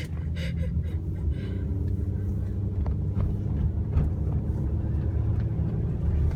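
Car cabin noise while driving: a steady low engine and road rumble.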